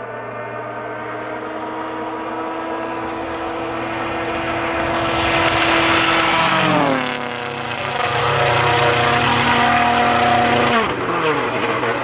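Hyundai i20 WRC rally car, its 1.6-litre turbocharged four-cylinder engine held at steady high revs, growing louder as it approaches flat out. The pitch slides down as it passes about seven seconds in, then it carries on at speed, with another drop in pitch near the end.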